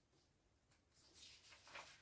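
Near silence, with faint rustling of paper sheets being handled in the second half.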